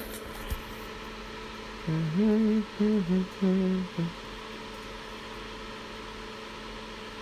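A man humming a short tune of a few held notes for about two seconds, over a steady low hum.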